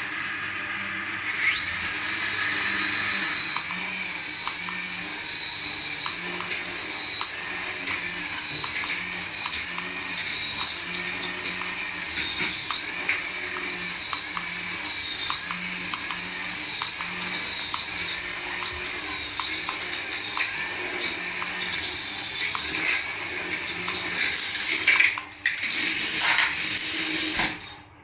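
Small electric motor of a remote-control toy whining steadily at high speed, with a repeating rising-and-falling tone over it. It cuts out briefly about 25 seconds in and stops near the end.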